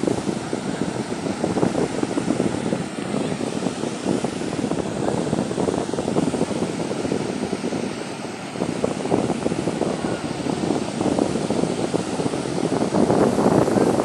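Small waves breaking and washing up a sandy beach: a continuous surging rush of surf that grows a little louder near the end.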